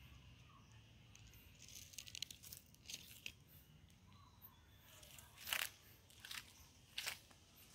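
Footsteps crunching on dry leaves and dry ground: scattered faint crackles, the loudest about five and a half seconds in and again near the end.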